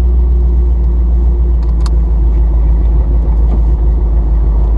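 Engine of an off-road 4x4 crawling slowly, heard from inside the cab: a steady low rumble with a constant engine hum. A single light click comes about two seconds in.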